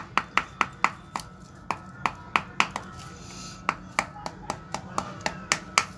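Sharp clicks and taps, about three a second and unevenly spaced, from hands working on a short PVC pipe slingshot handle as thread is wound and pulled tight around it. The clicks pause briefly about halfway through.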